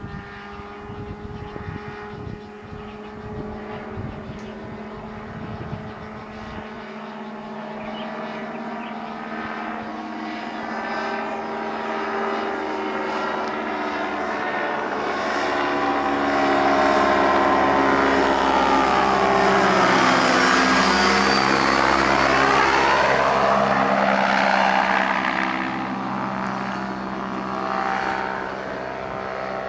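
Engine and propeller of an MX-II ultralight aircraft droning steadily as it flies low, growing louder to a peak in the second half as it passes close, its tone sweeping as it goes by, then fading a little. A low rumble like wind on the microphone in the first few seconds.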